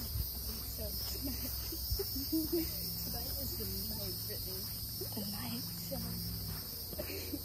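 A steady insect chorus: a continuous high-pitched buzz that holds unbroken throughout.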